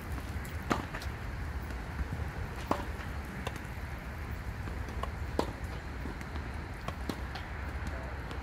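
Tennis balls struck by rackets and bouncing on a hard court during a rally: sharp pops every two to three seconds, the loudest about five and a half seconds in, with fainter bounces between. A steady low rumble runs underneath.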